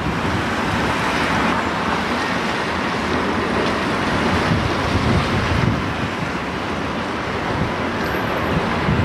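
Class 153 single-car diesel railcar running slowly over the station approach tracks: the steady sound of its underfloor diesel engine and its wheels on the rails. A faint high whistle comes in near the end.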